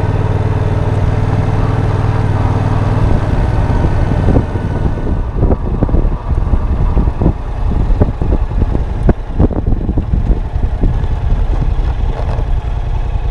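Yamaha FZ-07's parallel-twin engine running steadily under way. From about four and a half seconds in, the steady note gives way to irregular buffeting thumps and gusts over a weaker engine sound.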